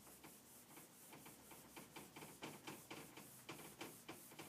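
Whiteboard eraser wiping across the board in quick, faint back-and-forth strokes, about four a second.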